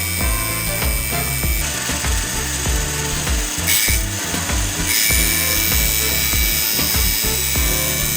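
Tool work, a steady rubbing and scraping that changes in level every second or so, over background music with a steady beat.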